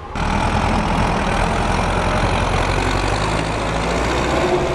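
Zetor 7745 tractor's four-cylinder diesel engine running steadily under load while pulling a mounted plough through the soil.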